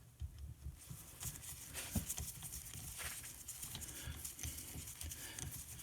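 Faint, irregular light taps and knocks, with a sharper click about two seconds in.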